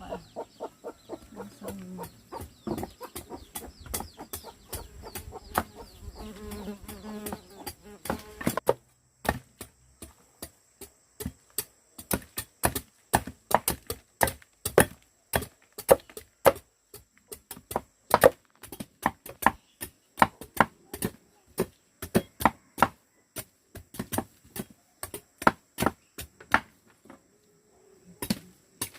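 Repeated chopping, sharp blade strikes at about two to three a second, with chickens clucking through the first third.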